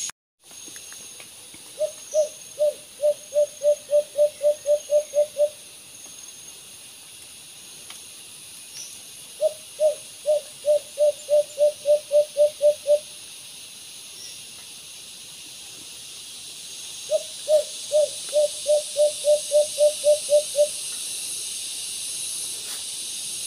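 White-eared brown dove calling: three runs of quick low hoots, about four a second, each run lasting some three and a half seconds and repeated every seven seconds or so, over a steady high hiss.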